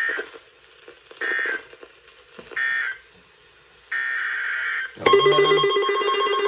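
NOAA Weather Radio SAME digital data bursts: three short raspy bursts that end the first warning, then a longer header burst that begins the next one. About five seconds in, a loud buzzy electronic alert tone cuts in for about two seconds.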